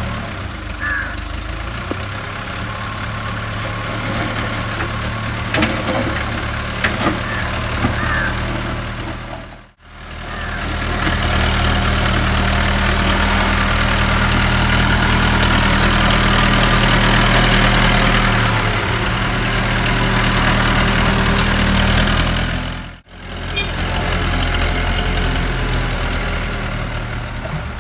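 JCB 3CX backhoe loader's diesel engine running steadily while its front loader bucket pushes and scrapes soil along a dirt road. A few sharp knocks come about a quarter of the way in, and the engine is louder through the middle stretch. The sound drops out briefly twice.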